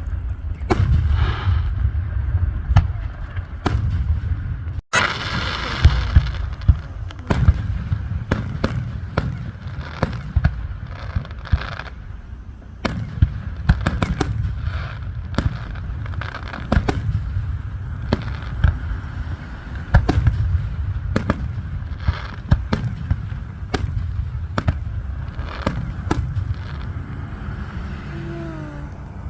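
Aerial fireworks display: a rapid, irregular barrage of sharp bangs and booms, several going off each second, with a dense burst of crackling noise about five seconds in.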